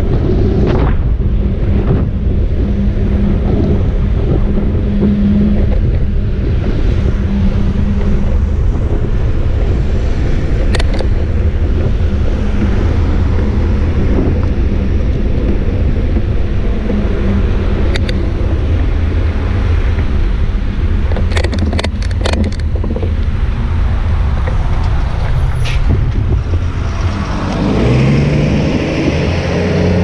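Steady wind rumble on a bike-mounted GoPro's microphone while riding in car traffic. A few sharp knocks come about two-thirds of the way through, and a vehicle engine rises in pitch near the end.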